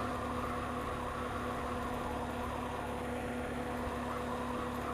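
Honda Z125 Monkey's 125 cc single-cylinder four-stroke engine running at a steady speed while the bike is ridden along the road, a constant drone with no change in pitch.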